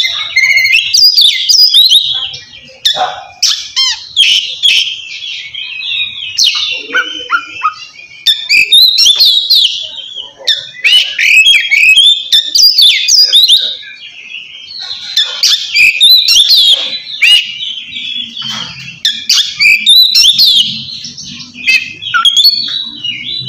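Oriental magpie-robin (kacer) singing loudly in the 'ngeplong' style, a song of calling out to a rival: runs of clear whistled phrases with quick rising and falling notes, broken every few seconds by short pauses.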